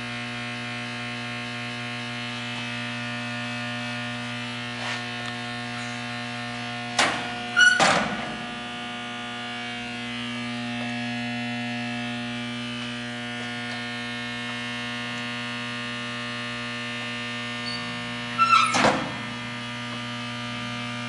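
Carbolite GPC 12/65 box furnace powered on with a steady electrical hum, broken twice by a quick pair of loud clunks, about seven seconds in and again near eighteen seconds.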